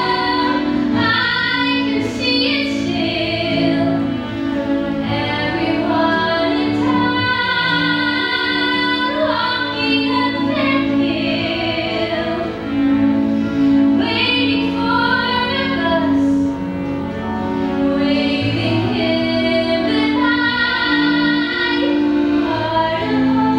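A woman singing a slow musical-theatre ballad with instrumental accompaniment, holding long notes.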